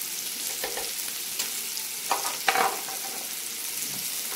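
Shrimp, scallops and sliced sausage sizzling on a hot electric grill griddle: a steady crackling hiss, with a few brief louder sounds around the middle.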